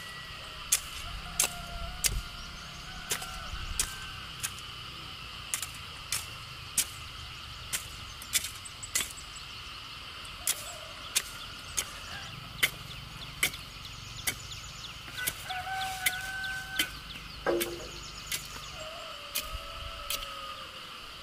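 A hoe blade chopping into dry, packed soil in a steady rhythm of sharp strikes, roughly three every two seconds. Roosters crow several times in the background over a steady high insect drone.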